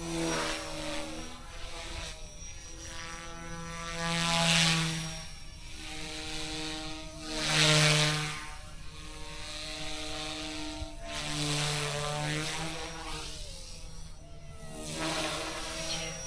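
Eachine E120S small electric RC helicopter flying passes, its rotor and motor buzz swelling and fading as it swoops by several times, the pitch sliding as it passes. The loudest passes come about four and a half and eight seconds in.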